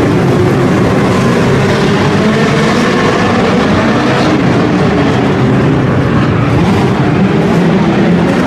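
A pack of midget race cars running flat out around an indoor dirt oval. Several engines drone loudly at once, with no break.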